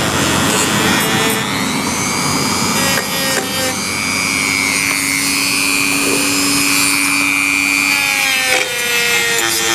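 Small rotary power tool abrading powder coating off the steel gasket face of an MGA rear axle casing: a motor whine over a steady scraping hiss. The pitch shifts as it bears on the metal and dips briefly near the end.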